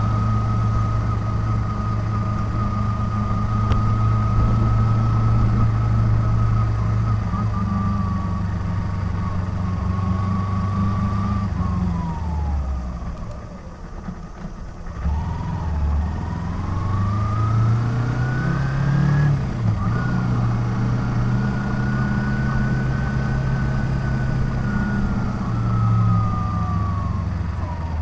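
Kawasaki Ninja 250's parallel-twin engine heard from the rider's seat, running at a steady cruise with a high whine that follows engine speed. About twelve seconds in the revs fall away as the bike slows. The revs then climb again to a gear change near nineteen seconds, hold steady, and fall once more near the end.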